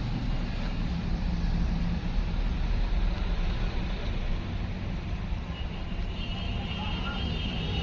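Steady low rumble of vehicle noise, with faint high-pitched tones joining in the last two seconds.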